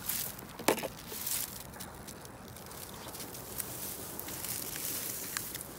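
Long grass and dry fallen leaves rustling as a hand parts them, with a few short crackles and snaps.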